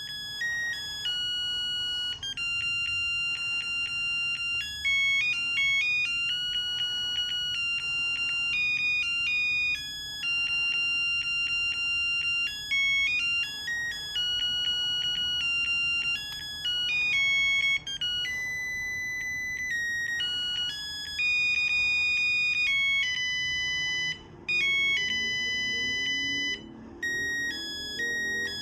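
Cordless phone handset playing a melody ringtone: a tune of electronic beeping notes that step from pitch to pitch, with a couple of short breaks between phrases near the end.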